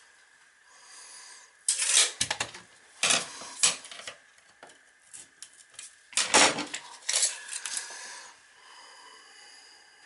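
Clinking and rattling of small hardware and tools being handled and set down, in three bursts of sharp clicks.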